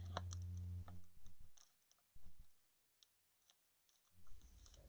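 Faint clicks and rustles of trading cards and their packaging being handled: a low hum for the first second, then a handful of separate soft snaps with quiet between.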